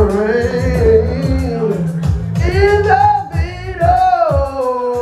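A man singing karaoke into a microphone over a slow R&B backing track with a bass line, holding long notes that glide up and down.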